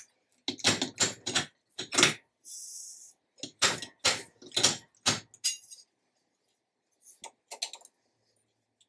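Powder measure being worked by hand: a run of sharp metallic clicks and clinks as the handle is cycled, with a short hiss of powder pouring into the metal scale pan about two and a half seconds in. A few fainter clicks follow near the end.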